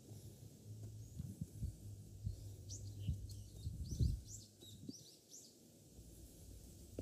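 A small bird sings a quick series of high chirps for about two seconds near the middle, over irregular low thuds of footsteps on the trail, the heaviest about four seconds in.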